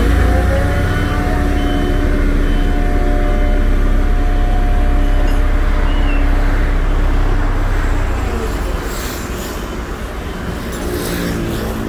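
Heavy diesel construction machinery running: a steady low engine rumble with a few whining tones above it. It eases off somewhat about three-quarters of the way through, and short high hisses follow.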